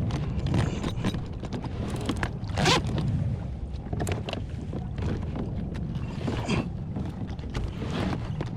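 Scrapes and rustles of fishing gear being handled on a kayak, with one louder brief rasp about two and a half seconds in, over steady wind noise on the microphone.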